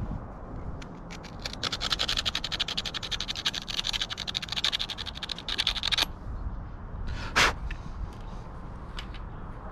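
A spark plug from an outboard motor being scraped clean with a small blade: rapid scratching strokes for about four seconds, from about a second and a half in. A short, loud rush of noise follows about seven seconds in.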